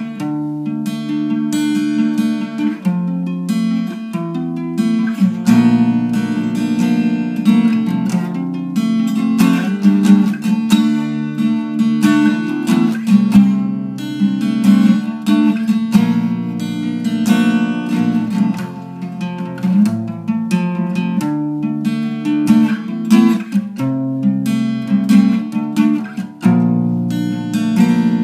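Solo cutaway acoustic guitar played continuously, picking a riff of plucked notes and chords that change as it goes.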